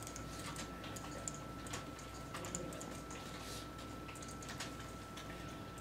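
Scattered keystrokes from several computer keyboards being typed on, with a steady faint high-pitched tone underneath.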